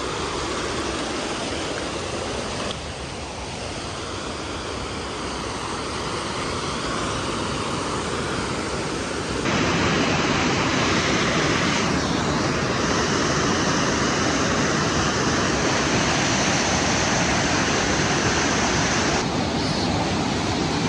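Mountain creek cascading over rocks: a steady rush of whitewater that gets louder about halfway through, as the water comes close underfoot.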